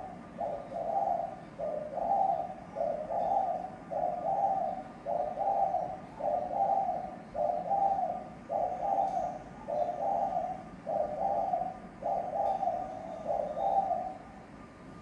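Spotted dove cooing: a long, even run of short repeated coos, about three every two seconds, that stops about a second before the end.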